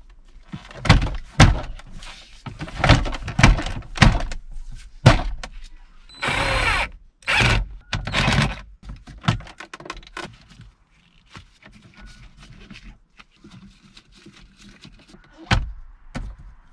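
A plastic glove box being pushed and latched into a car's dash: a run of knocks and thunks as its top clips are lined up and snapped in, with a short scrape partway through. Quieter handling follows, with one more knock near the end.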